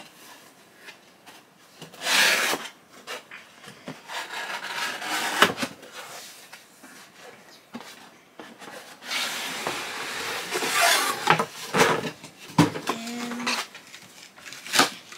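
A corrugated cardboard shipping box being handled and opened by hand: irregular scraping and rubbing of cardboard flaps, with several sharp knocks as the box and a shoe box inside are moved.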